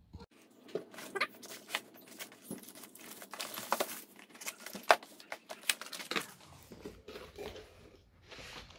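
Plastic wrap and packing tape crinkling and tearing as a parcel is cut open with a knife, then cardboard rustling and clicking as the box is opened. It comes as a busy string of sharp crackles, with the loudest click about five seconds in.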